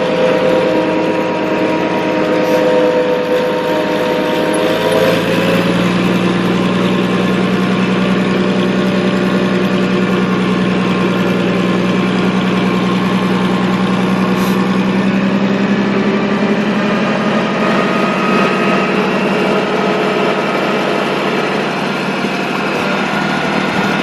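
Tractor engine running steadily; its pitch drops about five seconds in, then holds at the lower speed.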